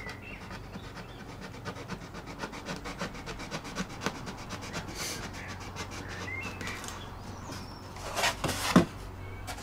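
Kitchen knife sawing through the veneer of a model aircraft wing: a rapid run of small scratchy ticks, then a few louder rasping strokes near the end.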